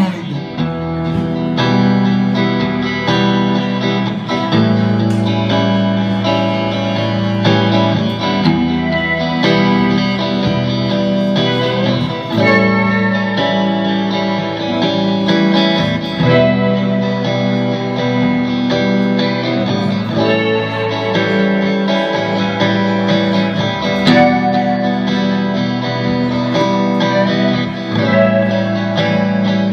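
Electric guitar playing a song through effects, a steady run of sustained chords and notes.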